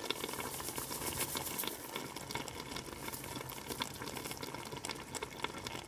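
Chicken pieces cooking in oil and their own juices in a pot, a steady bubbling with fine crackling.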